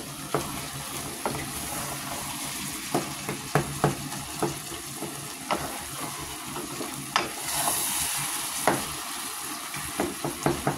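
A pot of beef and tomato stew sizzling steadily, with a spoon knocking against the pot about ten times, irregularly.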